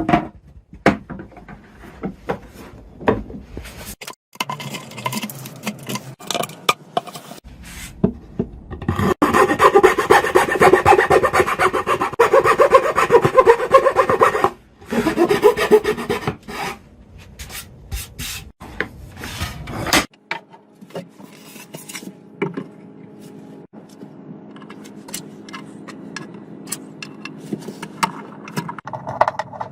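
A hand tool scraping back and forth across wood in rapid strokes, loudest for about five seconds near the middle. Scattered knocks and clicks of wood being handled come before and after.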